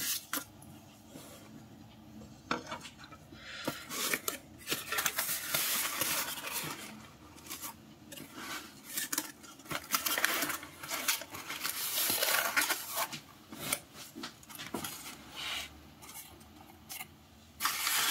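A cardboard shipping box being cut and opened by hand: a utility knife scraping along the taped seams with irregular clicks, cardboard flaps scraping and folding back, and paper packing rustling near the end.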